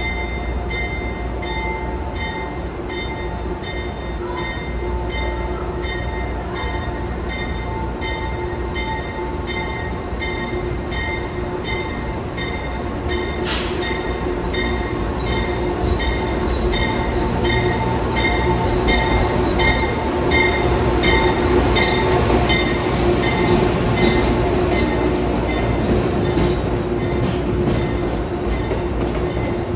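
Amtrak P32AC-DM locomotive pulling a train of Amfleet coaches slowly past through the station, with a low rumble of wheels on rail that grows louder after about 16 seconds as the coaches roll by. Over it, the locomotive's bell rings steadily about twice a second. There is a single sharp click about halfway through.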